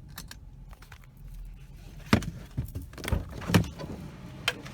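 Sharp clicks and knocks of someone getting out of a parked truck, about five of them in the second half, over a low steady rumble.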